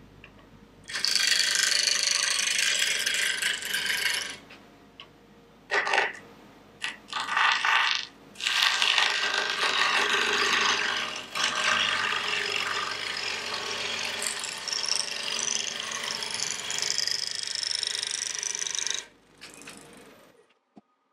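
Bowl gouge cutting a spinning square blank of green maple on a wood lathe, an interrupted cut across the corners, with shavings flying. The cutting comes in several stretches over a low motor hum, and stops near the end as the lathe is switched off.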